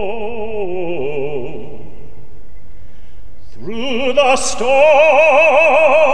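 A man singing a gospel hymn in a full operatic voice with wide vibrato, accompanied by grand piano. A held note dies away about a second and a half in, and after a short lull the voice comes back in on a rising note about three and a half seconds in.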